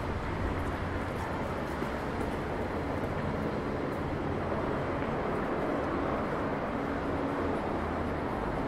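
Steady urban street ambience: an even rumble of vehicle traffic with a constant low engine hum under it.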